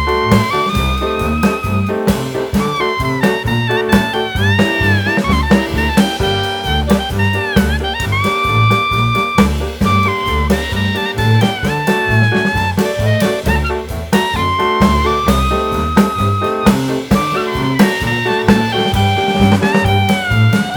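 Upbeat jazz background music: a horn melody, tagged as saxophone or trumpet, over a steady drum and bass beat.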